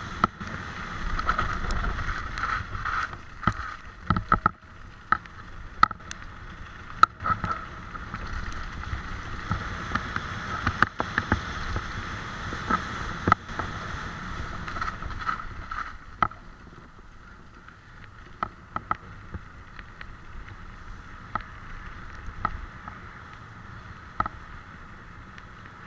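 Bike tyres rolling fast over a rough gravel and mud track, with a low rumble, rattling and frequent sharp knocks from the bumps, and wind on the microphone. The rumble and knocks ease after about sixteen seconds as the track turns into a smoother lane.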